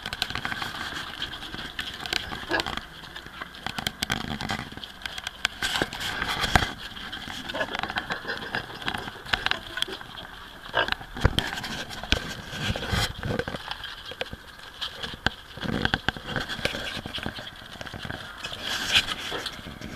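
Five-day-old mini pig piglets play-fighting, with repeated high-pitched squeals and short knocks and scuffles of hooves on paving stones.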